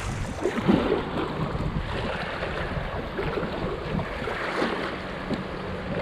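River current rushing and splashing around a kayak being paddled through fast water, with paddle strokes in the water and wind rumbling on the microphone.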